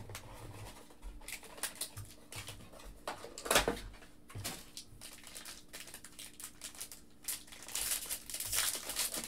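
Cardboard trading-card box being handled and opened, with scattered knocks and rustles and one louder knock about three and a half seconds in. From about seven and a half seconds on, a foil card-pack wrapper crinkles as it is torn open.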